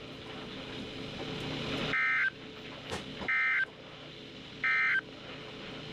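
Three short bursts of Emergency Alert System SAME digital data on a NOAA Weather Radio broadcast: the end-of-message code that closes the alert. Each burst is a harsh two-tone warble lasting about a third of a second, and they come about 1.3 seconds apart over steady radio hiss, with a single click between the first two.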